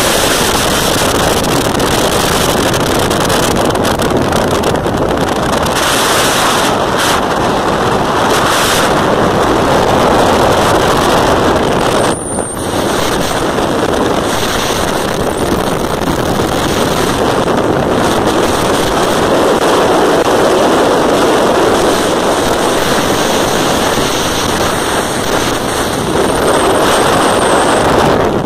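Steady wind rush over the microphone from a motorcycle riding at road speed, with the bike's running and tyre noise blended underneath. It drops briefly about 12 seconds in.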